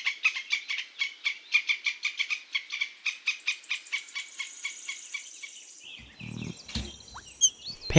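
Squirrel chattering: a fast run of sharp, repeated high chirps, several a second, with a thin high whistle joining briefly past the middle. The chatter stops about six seconds in, and fainter, lower sounds follow.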